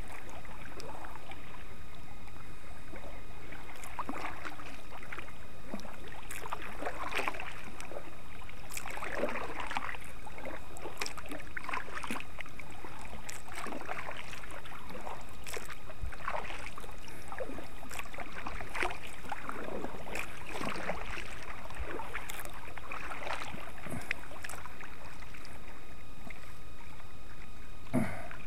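Kayak paddle strokes dipping and swishing through river water, an uneven splash every second or two, over a steady hiss.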